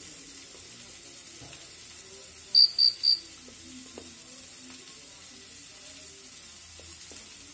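Three short, high-pitched beeps in quick succession, over a faint steady hiss.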